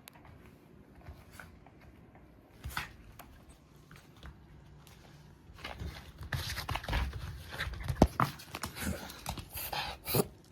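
Black mame-shiba (small Shiba Inu) reverse sneezing: after a few quiet seconds with faint clicks, a quick run of loud, noisy breaths drawn in again and again starts about halfway in. This is a fairly intense reverse-sneeze bout.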